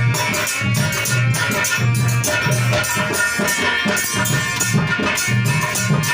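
Instrumental break in folk devotional music: a drum keeps a steady beat under rattling percussion and a held melody.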